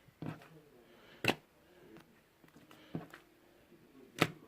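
A few sharp clicks in a small room, the loudest about a second in and another near the end, with fainter ones between.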